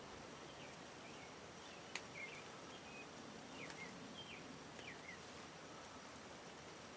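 Faint outdoor ambience: scattered short songbird chirps over a steady hiss, with one sharp click about two seconds in.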